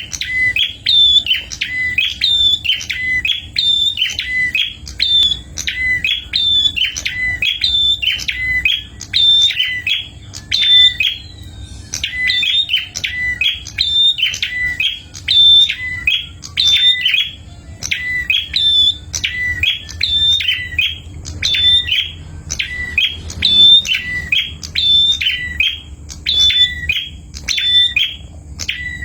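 Prinia (prenjak) singing a sharp chirping phrase, its notes dropping from high to lower pitch, repeated over and over about once a second without a break.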